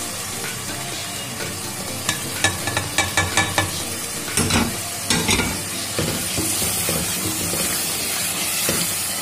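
Masala paste frying in oil in a metal pan, sizzling as ground spices are added and stirred in with a wooden spoon. There is a quick run of sharp taps about two to three and a half seconds in, and the sizzle grows brighter in the last few seconds.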